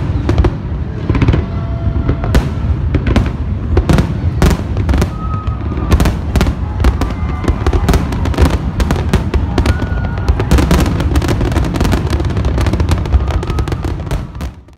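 Fireworks barrage: a dense run of overlapping bangs from many aerial shells bursting in quick succession, growing even thicker in the last few seconds before fading out abruptly at the end.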